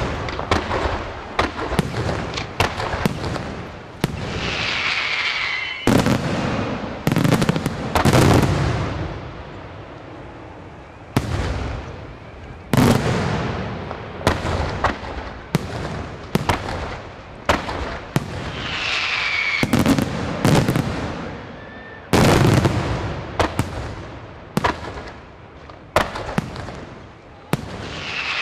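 Aerial firework shells bursting in a rapid, irregular series of sharp bangs. A whistle falling in pitch is heard twice among the bursts.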